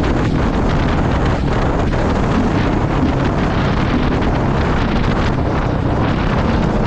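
Suzuki 450 dirt bike's single-cylinder four-stroke engine running steadily as the bike rides along, mixed with heavy wind noise on the microphone.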